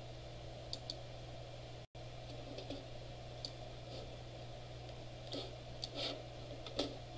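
Faint, irregular clicks of a computer mouse, about ten spread over several seconds, over a steady low hum. The audio drops out for an instant about two seconds in.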